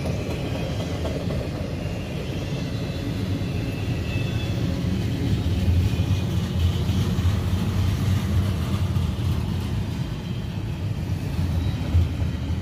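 Freight train of double-stack intermodal container well cars rolling past. Its steel wheels on the rails make a steady low rumble.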